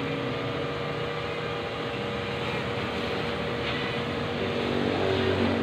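X1 Pro GPS quadcopter drone hovering, its motors and propellers giving a steady hum, with the pitch rising and the sound growing a little louder near the end.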